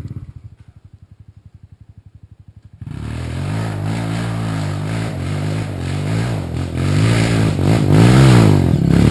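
Dirt bike engine ticking over faintly with an even low pulse, then about three seconds in revving hard, the revs swinging up and down and growing louder as the bike climbs a steep trail toward the listener.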